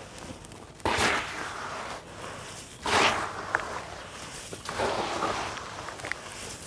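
Handfuls of dry, gritty sand-cement and charcoal mix crumbling from the hands and pouring into a tub, three times about two seconds apart, each a sudden gritty rush that fades away.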